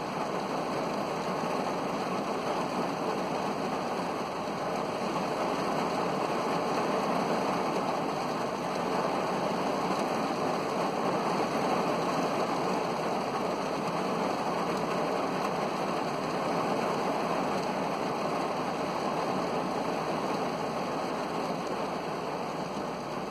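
Heavy rain falling on a car's roof and windows, heard from inside the car as a steady, even hiss.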